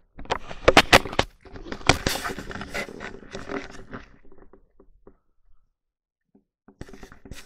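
Handling noise from a handheld camera being moved: a few sharp knocks and clicks, then rubbing and scraping that die away. After a short quiet stretch, more knocks and rustling start near the end.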